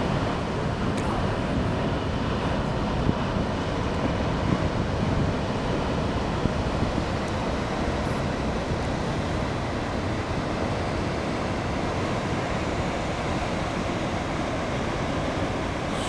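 Steady rush of ocean surf from waves breaking offshore, with wind buffeting the microphone.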